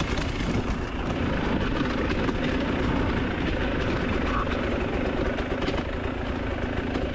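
Enduro dirt bike engine running steadily.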